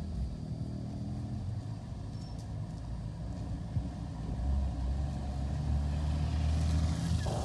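Heavy dump truck's engine running at low speed as it creeps forward, a low steady rumble that grows louder as the truck comes closer.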